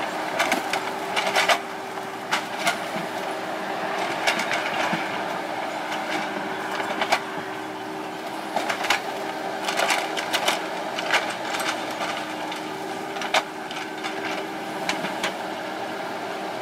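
Kubota KX91-3 mini excavator's diesel engine running steadily, with a whining tone that rises and drops out several times as the hydraulics work. Sharp metallic clanks and knocks come every second or so.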